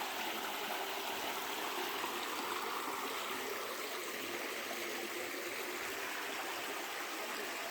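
Creek water flowing steadily, an even, unbroken rush of running water.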